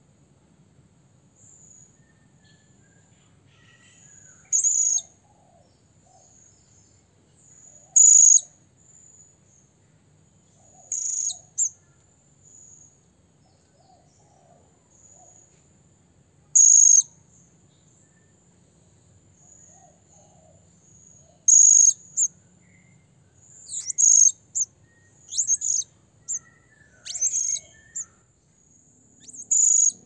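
Blue-crowned hanging parrot (serindit) giving short, sharp, very high-pitched shrill calls, the calls it uses to challenge a rival. About ten calls come a few seconds apart at first and closer together in the last third, over a faint steady high whine.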